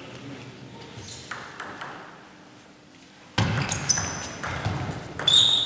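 Table tennis ball hitting the table and rubber bats in a rally, sharp clicking hits with a short bright ping. A few hits come from a little past halfway, under a sudden rise in hall noise; before that only faint ticks.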